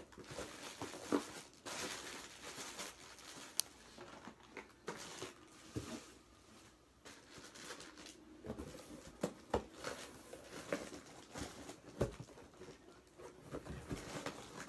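Plastic snack wrappers crinkling and rustling as packets are handled and opened by hand, with scattered light knocks and taps.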